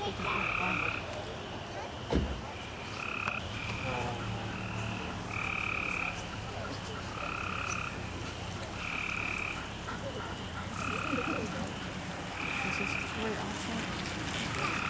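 Repeated short animal calls, each an even-pitched note about half a second long, coming about once a second over a steady low hum. A single sharp thump about two seconds in.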